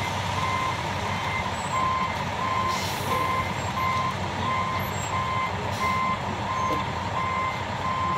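Concrete mixer truck's reversing alarm beeping steadily, just under two beeps a second, over the truck's engine running.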